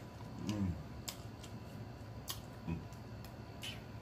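Close-miked eating of a chicken wing: sharp wet mouth smacks and clicks about once a second as meat is pulled off the bone, with two short low hums of enjoyment.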